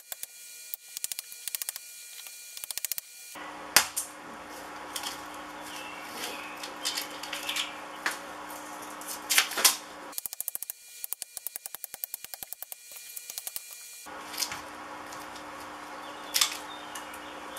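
Hammer tapping a chisel into a small transformer's steel core, a fast run of light, even strikes, to break it apart for its copper windings. Twice the tapping gives way to scattered sharper metallic knocks and clinks with a short ring as the pieces and tools are handled, the loudest about four seconds in.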